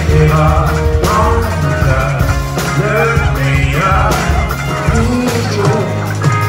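Live rock band playing: a man singing over hollow-body electric guitar, electric bass and a drum kit, with a steady beat.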